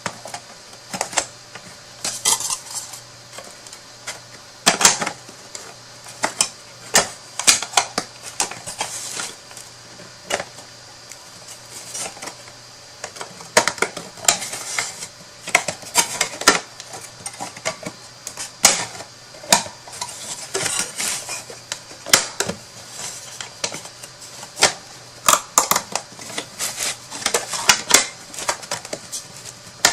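Thin wooden box pieces clicking and knocking irregularly as they are handled and their tabs pushed into slots, with light rubbing and sliding between the knocks.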